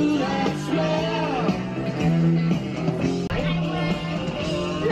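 Background rock and roll song with a singing voice over guitar.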